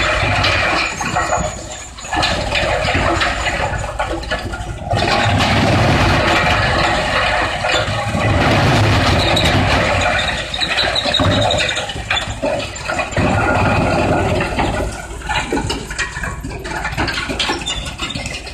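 Large industrial wood crusher running and shredding wood, a loud, uneven grinding noise whose level dips and surges as material goes through.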